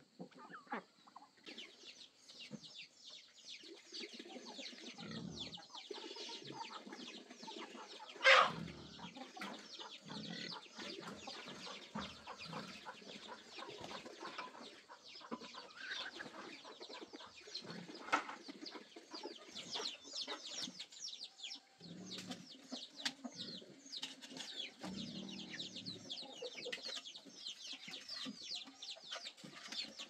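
Chickens clucking, with a loud sharp knock about eight seconds in and a smaller click about ten seconds after it.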